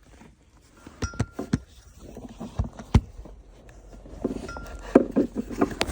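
Scattered knocks and clicks of a short-shifter sandwich plate being worked into place in a car's shifter opening: a few sharp taps about a second in, two more around three seconds, and more near the end.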